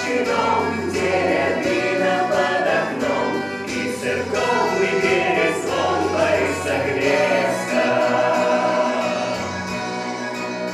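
Lyrical pop song: a group of voices singing together over an instrumental backing, getting a little quieter near the end.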